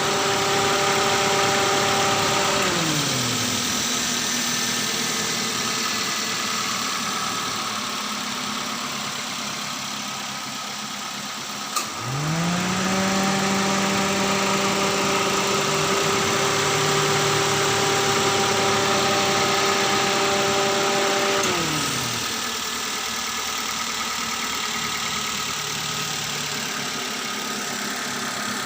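Daihatsu Sirion engine held at raised revs, dropping back to idle about two and a half seconds in. After a click about halfway through, the revs rise quickly, hold steady for about nine seconds, then fall back to a steady idle.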